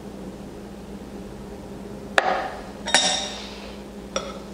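Metal cake-cutting utensils (a cake knife and a cake server) clinking sharply against hard dishware twice, about three-quarters of a second apart. The second clink rings briefly, and a lighter tap comes near the end.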